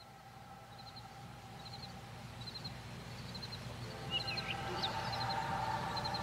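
Birds chirping over a low steady hum and held tones, all fading in from quiet. One short high chirp repeats about once a second, and a few more varied gliding calls come in a little past the middle, as the held tones swell.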